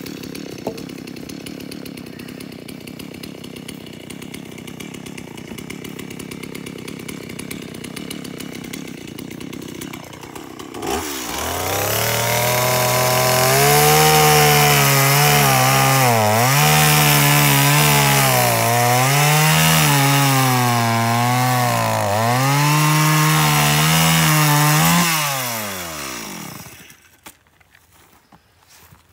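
Gas two-stroke chainsaw revved high and cutting through a wooden pole, its chain dull. The engine pitch sags and recovers again and again as the bar bogs in the wood, then the revs drop and the saw stops near the end.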